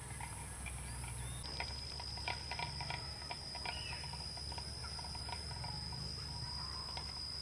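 A steady high-pitched insect drone, with a scatter of light clicks and taps a couple of seconds in.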